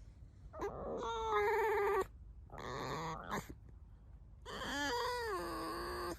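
Tame fox squeaking: three drawn-out, whining calls, the middle one breathier and scratchier than the other two.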